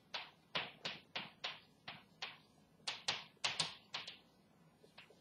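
Chalk tapping and scraping on a blackboard as words are written by hand: an uneven run of short, sharp strokes, about three a second, with a brief pause near the end.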